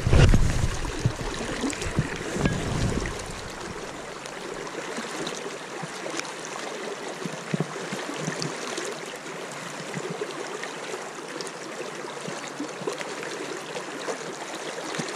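River current flowing and lapping around a wading angler, a steady watery hiss with small splashes. It is louder, with a low rumble and bumps, for the first three seconds.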